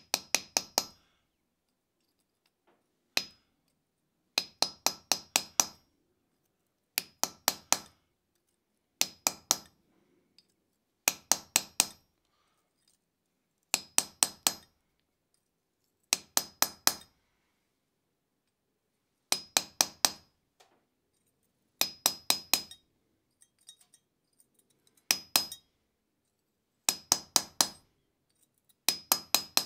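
Hammer blows on hand-held stamping and carving tools, cutting a face into a steel hook blank on the anvil. The blows come in quick bursts of four or five ringing strikes, with a short pause between bursts about every two seconds.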